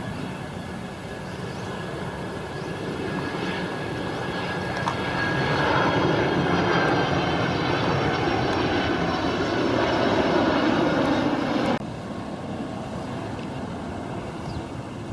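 Jet airliner passing low overhead, its engine noise swelling to a loud peak and then cutting off suddenly about twelve seconds in, leaving a quieter background.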